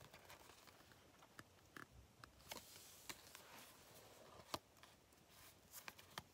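Faint soft clicks and rustles of Yu-Gi-Oh trading cards being slid and flipped through by hand. The sharpest click comes about four and a half seconds in, and a few quick ones come near the end.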